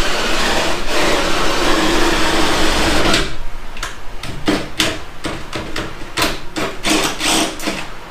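Cordless drill boring 7/16-inch holes into a car's sheet-metal trunk lid. The motor runs steadily for about three seconds, then goes in a run of short trigger bursts, about two a second, as the bit works its way through the panel.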